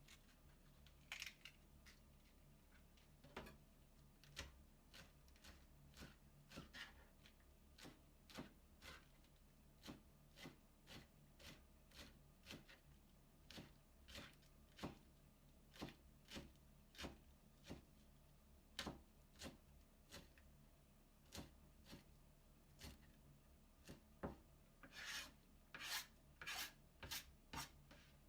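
Kitchen knife shredding cabbage into thin strips, each slice a short crisp cut, about one or two a second, with a quicker run of cuts near the end.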